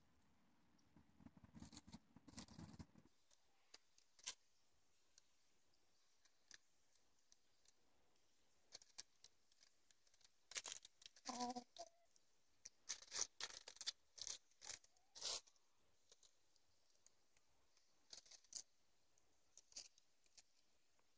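Mostly near silence, broken by faint scattered crackles and rustles in short clusters, busiest in the middle stretch: Barred Rock pullets pecking and scratching in grass and dry leaves. There is one short low cluck near the middle.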